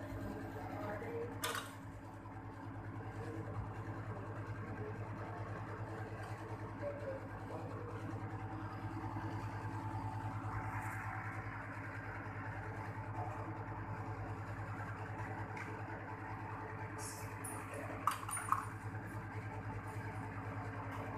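Panasonic split air conditioner outdoor unit running: a steady compressor hum with the whoosh of the condenser fan. A sharp click sounds about a second and a half in, and two more close together near the end.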